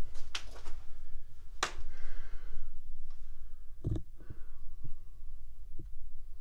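Footsteps and scuffs on gritty concrete and debris, with several sharp clicks and knocks, the loudest about a second and a half in and a low thump about four seconds in, over a person's breathing and a steady low rumble.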